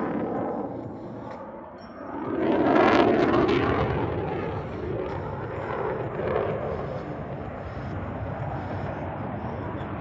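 Jet noise from the F-22 Raptor's twin Pratt & Whitney F119 turbofan engines. It dips briefly, swells sharply to its loudest about three seconds in, then slowly fades.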